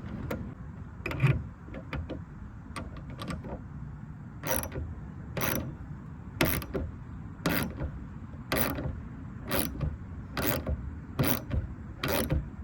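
Hand ratchet wrench tightening grille mounting nuts and bolts: a few light clicks at first, then from about a third of the way in a steady stroke of ratchet clicking about once a second.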